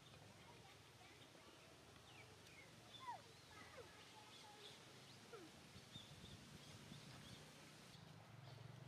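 Near silence: faint outdoor ambience with a low steady hum and a few faint, short falling calls, about three seconds in and again around five seconds.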